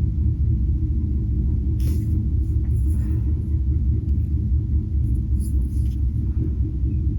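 Steady low rumble and hum, with a few faint short scratches that fit alcohol-marker strokes on paper about two, three and five and a half seconds in.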